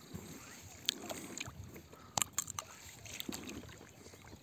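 An inflatable boat being rowed with aluminium oars: water sloshing with the strokes, and a few sharp clicks, about one and two seconds in.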